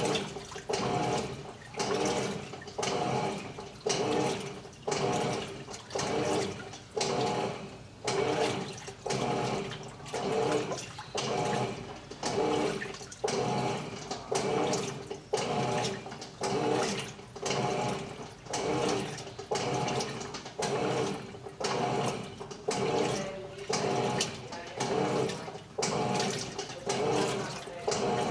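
Electrolux Turbo Economia LTE12 top-loading washing machine agitating a load of clothes in water: a swishing churn that pulses a little faster than once a second, over a steady hum.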